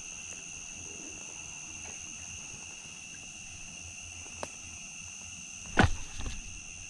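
Steady high-pitched chorus of night insects trilling without a break. There is a faint click about four seconds in and a sharp thump near the end.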